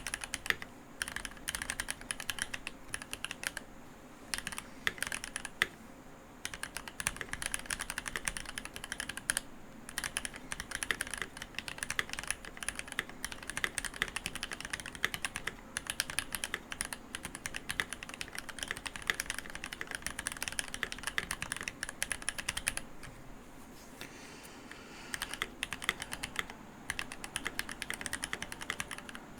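Typing on a Keychron V1 mechanical keyboard with Gateron Cap Milky Yellow linear switches and GMK doubleshot ABS keycaps: fast, continuous keystrokes, with a pause of about a second and a half about three-quarters of the way through before the typing resumes.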